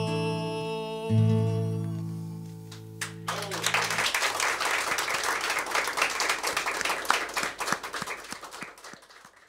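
Acoustic guitar's final chords of a song ringing out, with one last strum about a second in, fading away. Applause starts about three seconds in and dies down near the end.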